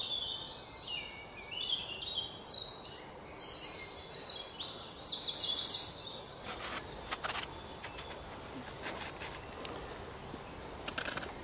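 Wild birds singing, with rapid runs of high, quickly repeated notes loudest from about two to six seconds in. Afterwards come a few soft clicks and scrapes of a spoon and knife working vegetables in a clay pot.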